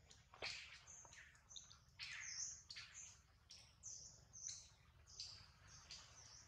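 Faint chirping of small birds: short, high chirps, some falling in pitch, repeating every half second or so over a low background rumble.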